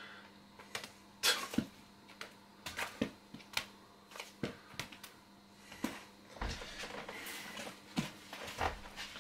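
Scattered light knocks and rustles, about a dozen separate ones spread over several seconds, from someone moving about and handling things.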